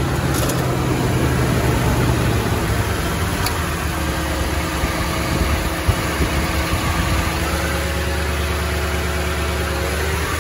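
Toyota Tundra's 5.7-litre V8 idling steadily, heard from underneath the truck beside the oil filter housing.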